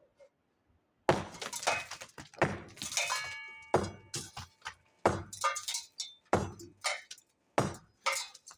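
Rubble from a demolished brick bread oven crashing and clinking in a quick series of about a dozen impacts, starting about a second in; a few of them ring briefly like glass or tile.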